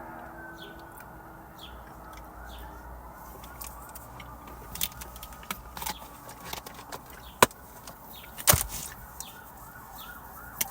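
Emergency vehicle siren wailing, its pitch gliding slowly up and down, then switching to quick repeated sweeps in the second half. A few sharp clicks and taps sound up close.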